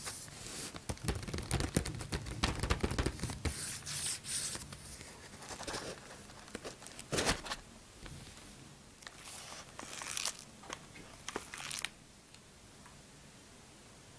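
Cardboard sweets box handled and opened by hand: fingers tapping, sliding and scraping on the card with crinkly, tearing sounds as the lid comes off. The loudest scrape is about seven seconds in, and the handling stops about twelve seconds in.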